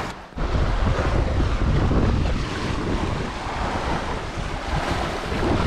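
Lake waves washing and splashing against a granite rock shelf, mixed with heavy wind rumble on the microphone.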